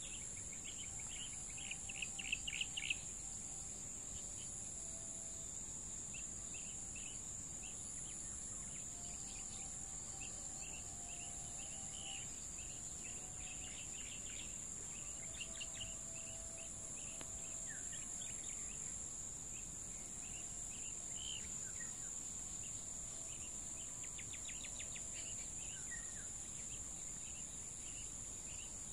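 Birds chirping in short, scattered calls, loudest about two to three seconds in, over a steady high-pitched insect drone from the field.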